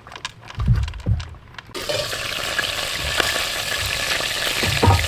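Food hitting a hot pan, starting a steady sizzle about two seconds in, after a couple of low knocks of handling the cookware.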